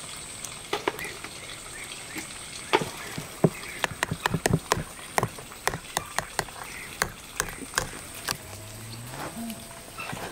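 Wire whisk clicking and tapping irregularly against a plastic mixing bowl while mixing yogurt and butter into flour for dough. A low drawn-out call sounds near the end.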